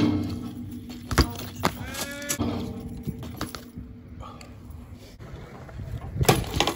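BMX bike striking a metal handrail with a loud clank at the start and a ringing tone after it, then knocks of tyres and frame on concrete. A short wavering voice-like call about two seconds in, and a cluster of clattering knocks near the end as a bike lands on a ledge.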